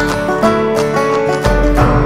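Background instrumental music: a quick run of short pitched notes over a steady bass.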